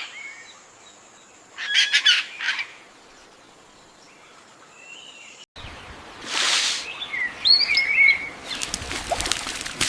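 Wild birds calling: a short cluster of chirps, then a rushing noise and a few more wavering chirps, over a steady hiss near the end.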